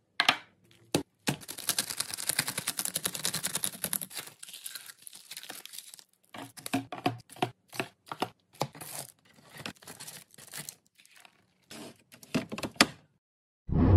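Plastic packaging crinkling and being torn open while items are restocked, then a run of light clicks and knocks as items are set down. A louder thump comes right at the end.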